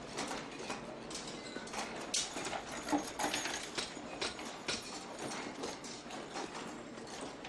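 Irregular sharp knocks and metallic taps, a few a second: hand-tool work on metal in a hinge-making workshop.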